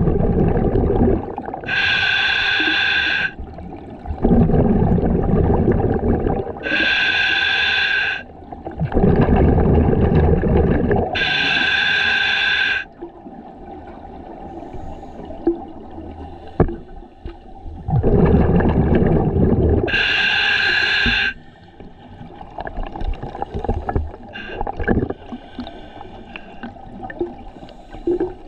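A scuba diver breathing through a regulator underwater, four breaths in all. Each is a rumble of exhaled bubbles followed by the whistling hiss of an inhale, with a quieter gap of about five seconds between the third and fourth breath.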